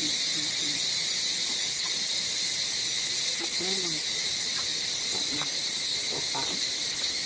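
Steady, shrill chorus of insects droning without a break, with faint snatches of voices now and then in the background.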